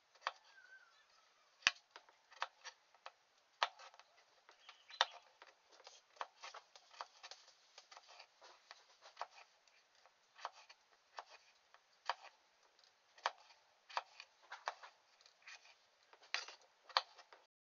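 Large kitchen knife cutting peeled raw potatoes into chunks on a wooden chopping board: irregular sharp clicks of the blade going through the potato and knocking the board, about one or two a second.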